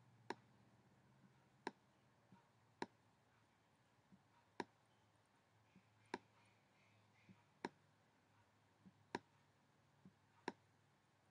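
Faint computer mouse clicks, one sharp click about every one and a half seconds, each with a softer click just before it, while the page scrolls down.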